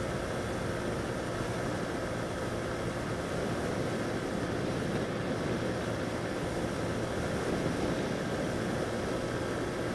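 Honda CG 125 motorcycle's single-cylinder four-stroke engine running at a steady cruise, heard from the rider's seat, with a steady rush of wind and road noise over it.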